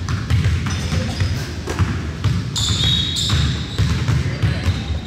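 Basketball dribbled on a hardwood gym floor, with sneakers squeaking on the court about two and a half seconds in.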